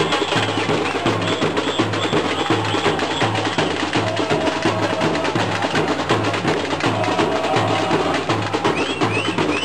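Drumming and percussion with a steady beat of about two low drum strokes a second, under dense clicking percussion.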